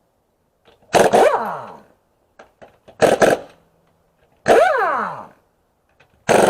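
Impact wrench fired in four short bursts, each starting with a hammering rattle and then a motor whine that falls in pitch as it spins down, loosening nuts.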